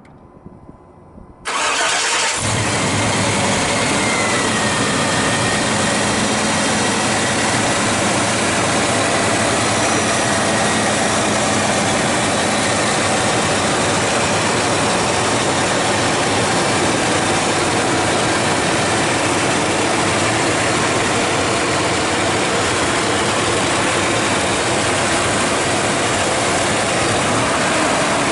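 The 1995 GMC Yukon's 5.7-litre V8 starts about a second and a half in, then idles steadily, heard with the hood open.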